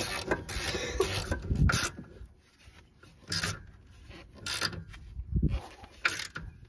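Hand work on a car's rear suspension close to the microphone: rubbing and scraping, broken by several sharp knocks, as a new rear shock absorber is fitted to its lower mount.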